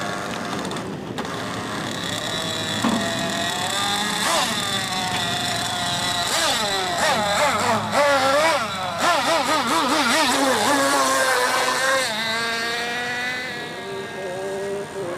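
Several radio-controlled tunnel-hull model racing boats running flat out together, their small high-revving engines whining. The pitch wavers and swoops up and down as the boats pass and turn, loudest in the middle, then easing a little near the end.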